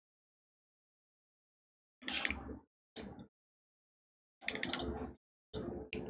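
Dead silence for about two seconds, then several short bursts of clicking and rustling from a computer mouse and keyboard being handled.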